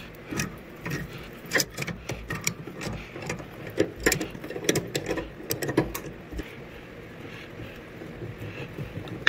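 Irregular metallic clicks and knocks of tongue-and-groove pliers gripping and turning a brass solenoid water valve body as it is unscrewed from its supply pipe. The clicks thin out over the last few seconds.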